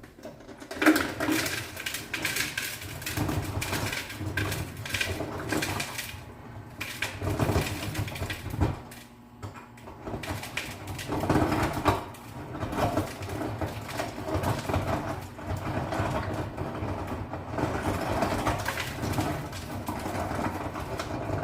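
Ice being scraped and knocked loose by hand in a refrigerator's freezer ice maker: an irregular clattering with many sharp clicks and knocks, rising and falling in loudness.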